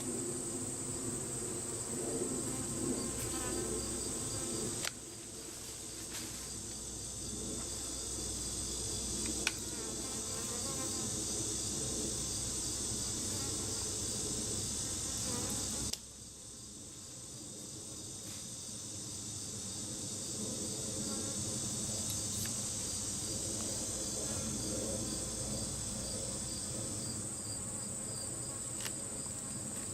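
A honeybee swarm buzzing in a low, wavering hum, over a steady high-pitched insect drone. The sound drops suddenly about five and sixteen seconds in, then builds again.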